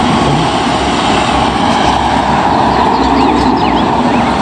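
Mercedes-Benz Sprinter ambulance van driving along a street: steady engine and road noise, with a few faint high chirps in the second half.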